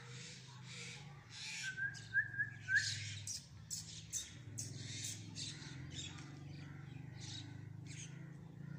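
Birds chirping, with a short run of sharp calls about two seconds in, over a low steady hum.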